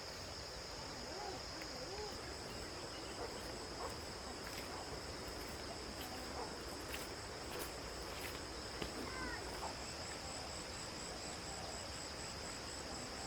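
Chorus of insects chirring steadily in a continuous high-pitched drone, with a second, higher pulsing trill coming in about ten seconds in. A few faint clicks sound over it.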